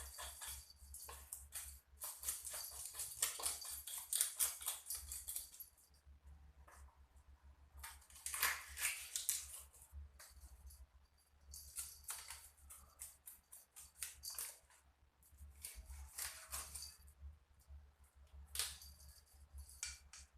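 Rapid scraping and clicking of a blade working over small fish (ikan biawan) as they are cleaned, in spurts of a few seconds with short pauses between.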